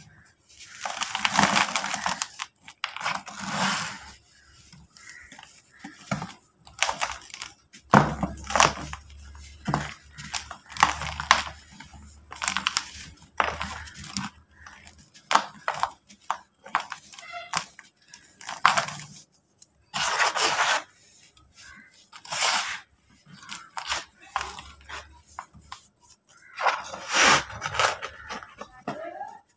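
Dry compacted red dirt shapes filled with powder being crushed and crumbled by hand, the dirt cracking apart and falling as loose dust into a plastic tub. A string of irregular crunching bursts, each lasting a second or less, with short pauses between them.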